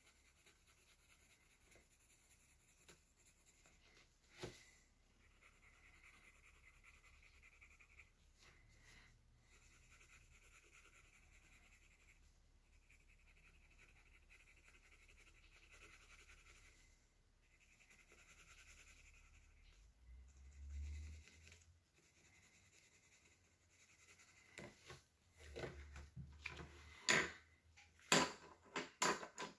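Orange coloured pencil shading on sketchbook paper: a faint, steady scratching that goes on in long stretches with short breaks between strokes. Near the end come a few sharp clicks and knocks.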